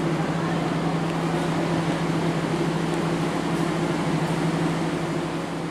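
Steady diesel drone of a passenger train standing at the platform: a constant low hum with a wash of engine noise over it.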